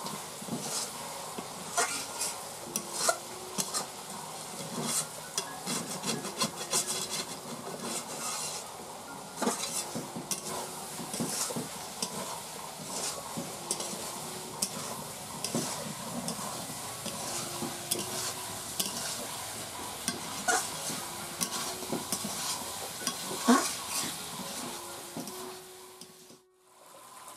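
Metal spatula stirring and scraping chicken curry in a black kadai, with irregular clinks against the pan over a steady sizzle as the chicken and potatoes fry in the spices. The sound drops out briefly near the end.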